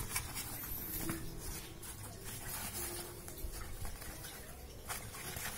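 Rustling and scraping of a Cordura fabric bow case as a hand handles it, with a few light knocks.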